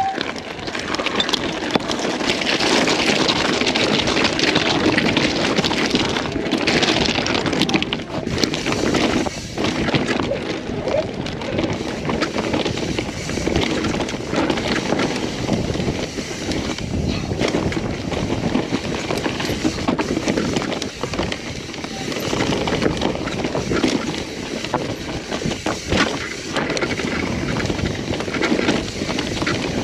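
Mountain bike riding fast down a dirt forest trail: continuous tyre and rushing-air noise, with frequent knocks and rattles as the bike runs over roots and bumps.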